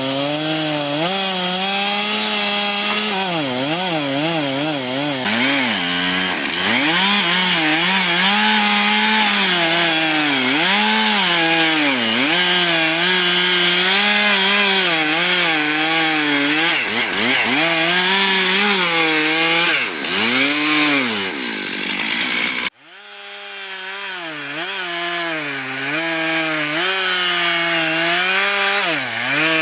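Chainsaw running at high revs while cutting wood, its engine pitch rising and falling again and again as the chain bites and the load changes. The sound cuts out abruptly about two-thirds through and comes back, fading in with the same wavering engine note.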